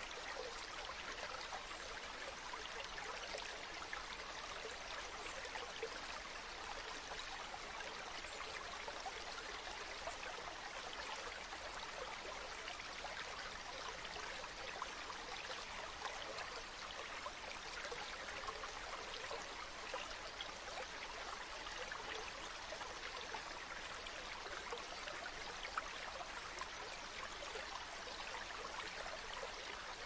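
River water flowing: a steady, even rush with many small gurgles and splashes.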